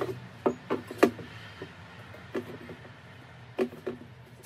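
Risen bread dough being turned out of a glass mixing bowl and worked by hand on a marble countertop: irregular knocks and thumps, about nine in four seconds and most of them in the first three, over a faint low hum.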